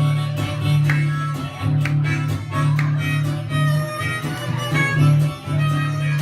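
Upbeat instrumental break in a children's action song, playing with a regular pulse and no singing.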